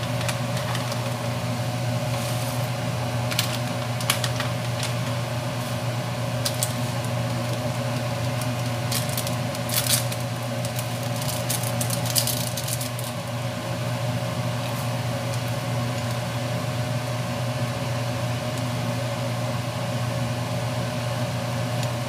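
Steady electric motor hum of a kitchen appliance or fan, with crackling rustles of a plastic bag as dried herbs are shaken out of it into a pot, scattered through the first half.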